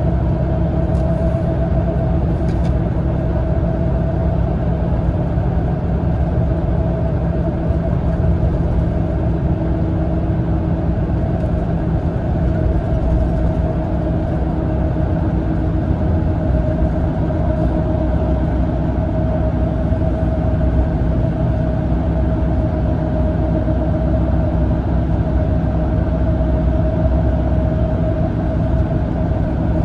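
Inside the cabin of a Mitsubishi Fuso Aero Ace coach cruising on the expressway, with its 7.7-litre inline-six turbo diesel and tyres giving a steady low rumble. Over the rumble runs a constant drivetrain whine.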